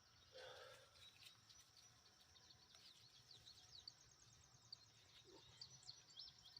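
Near silence with faint bird chirps, quick and repeated, thickest in the last couple of seconds, over a steady faint high hum.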